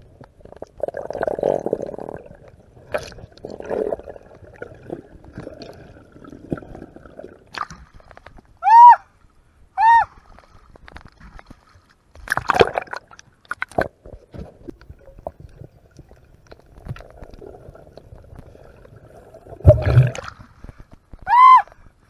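Water gurgling and sloshing around a freediver's action camera as it moves underwater and at the surface. Three loud, short squeals rise and fall in pitch, two near the middle and one near the end.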